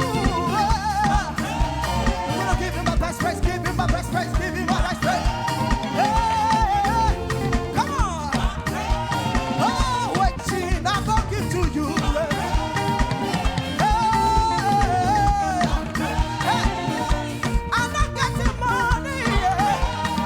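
Upbeat praise music from a band, with a steady beat, a gliding lead melody and singing.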